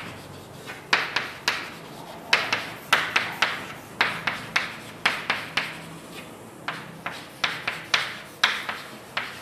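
Writing by hand: a quick, irregular run of short scratchy strokes and taps, about three a second, starting about a second in.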